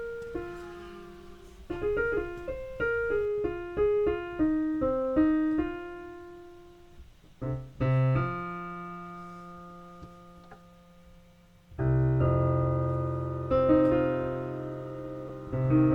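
Background piano music: a slow, gently descending melody of single notes, then sustained low chords struck about halfway through and again near the end, each dying away slowly.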